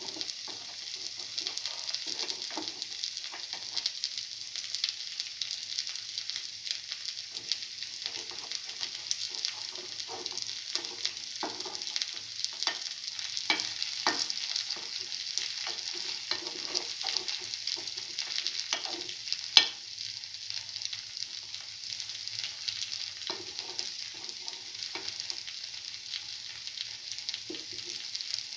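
Fritters shallow-frying in hot oil in a cavity pan, with a steady sizzle. Frequent light clicks and scrapes come from a spoon turning them in the pan's cups, with one sharp click about two-thirds of the way through.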